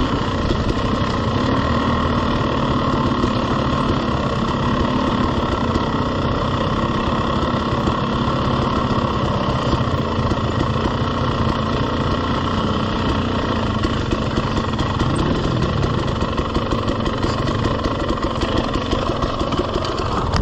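KTM two-stroke dirt bike engine running steadily at low trail speed.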